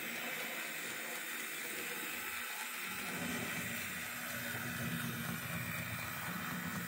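Bachmann Spectrum HO 0-6-0 switcher locomotive running on track, its small motor and wheels giving a steady hiss. About three seconds in, a low steady hum joins in.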